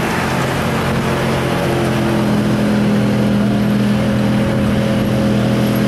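Chevrolet square-body pickup's engine running hard under heavy load as it pulls a sled through the dirt. The pitch holds steady and steps up slightly about two seconds in.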